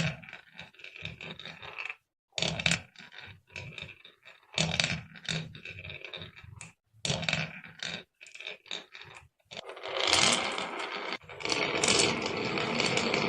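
Marbles rolling and clattering down a wooden HABA marble run, heard in short bursts that cut off abruptly into silence. From about ten seconds in, a continuous rolling rattle with many small clicks.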